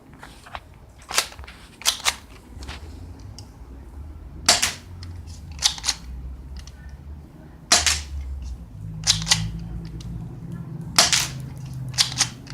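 Colt 1911 replica airsoft pistol firing single shots: a sharp crack every two or three seconds, with fainter clicks in between.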